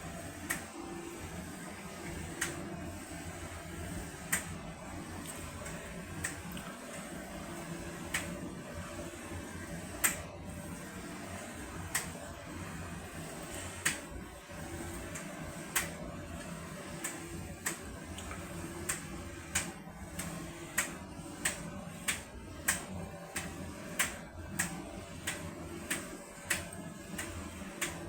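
LG FDV909WN heat pump tumble dryer running with a steady hum, and sharp clicks as the drum turns. The clicks come about every two seconds at first, then more often over the last ten seconds.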